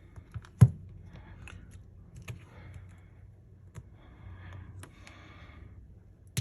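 Small clicks and taps of metal repair tools on a smartphone being taken apart, with one sharp click just under a second in.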